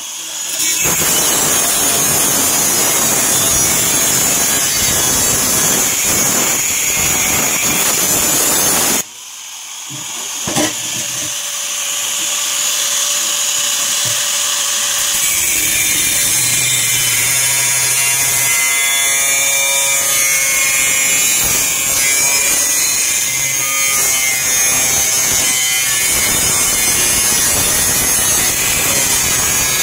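Steel cable tray being cut to form the elbow notches: continuous harsh cutting noise, breaking off briefly about nine seconds in and then building back up.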